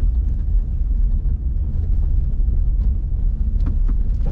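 Kia Niro EV driving over a rough, potholed road: a loud, steady low rumble of tyres and suspension, with no engine sound, and a few light knocks near the end.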